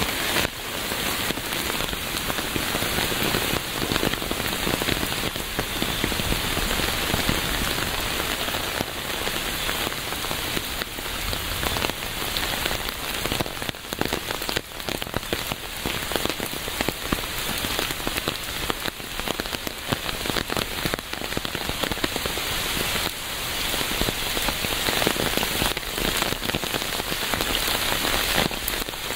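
Steady rain falling, a dense patter of drops hitting a surface without a break.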